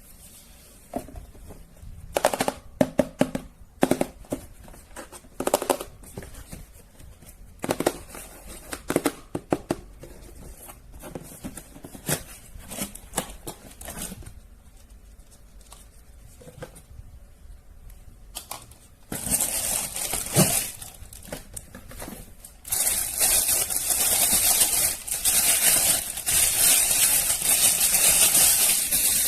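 Sharp clicks and rattles of hard plastic being handled, then a small battery-powered toy's motor and gears running with a steady clattering whir through the last several seconds.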